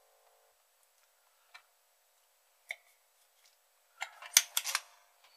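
Small hard tools being handled on a workbench: a couple of isolated sharp clicks, then a quick cluster of louder clicks and snaps about four seconds in.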